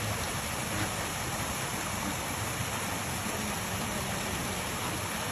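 Steady rush of water from a small artificial waterfall splashing into a shallow pond.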